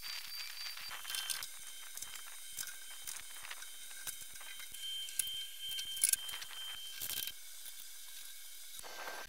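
Hand tools and metal motorcycle parts clicking, knocking and scraping as the bike is taken apart, over a steady hiss. A sharp knock about six seconds in is the loudest sound.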